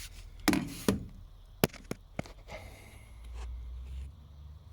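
A few scattered sharp clicks and knocks, then a low hum for about a second near the end.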